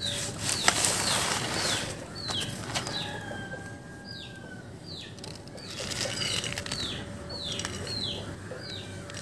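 A bird calling over and over in short downward chirps, roughly two a second. Under it is a soft rustle and scrape of finely chopped jackfruit sliding off a plastic cutting board into an aluminium pressure cooker, loudest in the first couple of seconds.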